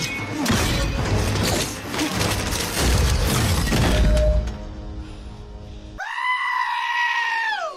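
Movie fight-scene soundtrack: music with rapid blows, crashes and shattering. Then, after a cut, a single high-pitched comedic scream sound effect is held for about a second and a half, drops in pitch and cuts off suddenly.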